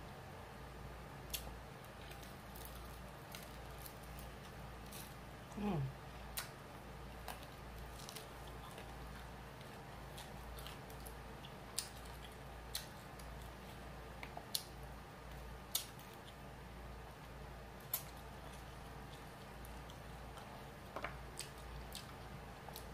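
Faint eating sounds from chicken wings: scattered wet clicks and smacks of chewing and of meat being pulled from the bones by hand. About six seconds in there is a short hum that falls in pitch.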